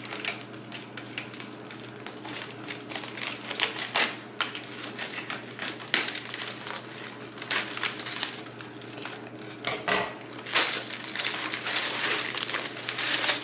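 Thick plastic vacuum-seal bag crinkling and rustling as it is snipped open with scissors and pulled apart, with irregular sharp crackles and clicks.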